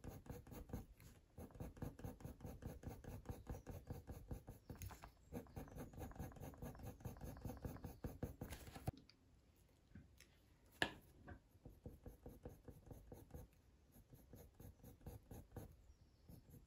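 Faber-Castell Polychromos coloured pencil scratching across hot-press watercolour paper in rapid short strokes, laying in dog fur. The strokes are faint, grow softer after about nine seconds, and there is a single sharp click about eleven seconds in.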